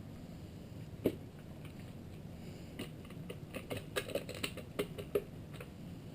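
Small, sharp metal clicks and taps from hand tools and bolts on a Triumph Daytona 675 engine's alternator cover: one click about a second in, then an irregular run of quick clicks in the second half.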